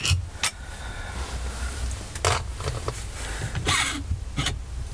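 Hands handling a loosened gear-lever selector housing: a handful of short scrapes and knocks of metal parts against one another and the cloth, over a low steady hum.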